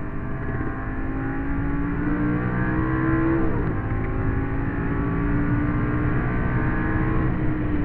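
Lamborghini engine under hard acceleration, heard inside the cabin on a race track. The revs climb, drop sharply at an upshift about three and a half seconds in, then climb again through the next gear.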